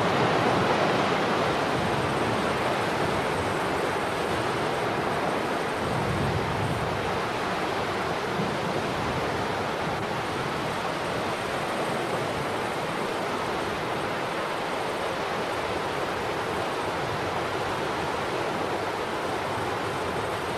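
Steady rushing of earth and rock pouring down a collapsing cliff face in a landslide, easing a little as it goes on.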